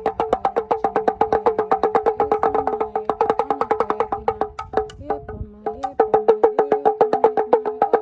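Rapid, even clicking, about nine sharp clicks a second, each with a short woody ring, over a faint steady low hum. The clicks falter and thin out for about a second halfway through, then resume.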